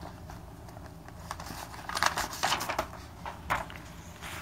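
A sheet of origami paper being handled and laid on a table: a few short, soft rustles and taps.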